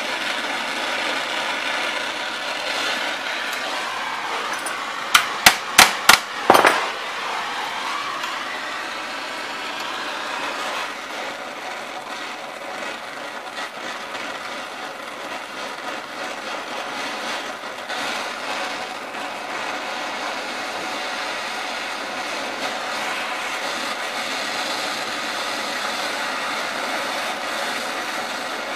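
Oxyacetylene torch flame hissing steadily as it heats a steel rod for bending. About five seconds in comes a quick run of five sharp knocks.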